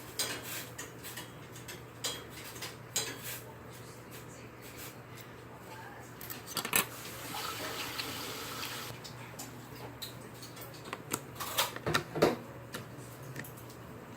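Light clinking, tapping and clicking of small kitchen utensils and containers being handled, with a hissing, rustling stretch from about seven to nine seconds in and a cluster of louder clicks near the end.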